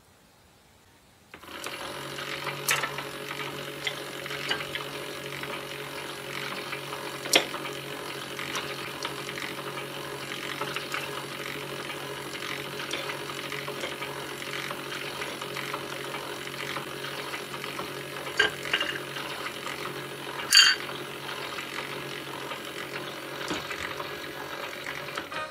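Battery-powered Anpanman toy kitchen playing a steady electronic sound effect through its small speaker, switched on by a button press about a second in. A few sharp plastic clicks and taps from the toy spatula and frying pan sound over it.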